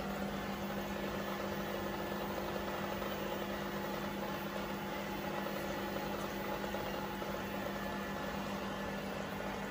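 Steady hum of an aquarium air pump, with the soft fizz of air bubbles streaming from a fountain tube in the tank.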